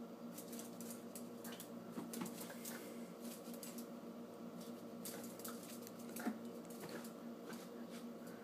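Claws of a small Pomeranian–Chihuahua mix dog clicking and scrabbling on a tiled floor as it spins and darts after a laser dot, with a sharper knock about six seconds in. A steady low hum runs underneath.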